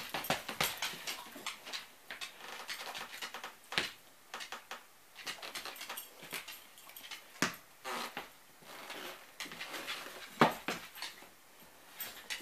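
A dog's paws in new snow booties patting and scuffing on a hardwood floor in an irregular patter of soft taps, with a few sharper knocks standing out.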